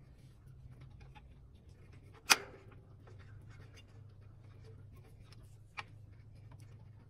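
Hand wrench clicking on the oil pump's bolt heads while the pump is bolted up under the International C153 engine: soft scattered ticks, one sharp ringing metal clink a little over two seconds in and a smaller one near the end. A low steady hum runs underneath.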